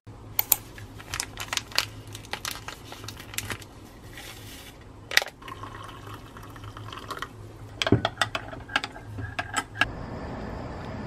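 Light clicks and glassy clinks at a table, then water poured into a glass mug of coffee, a steady filling tone about halfway through, followed by a cluster of further clinks.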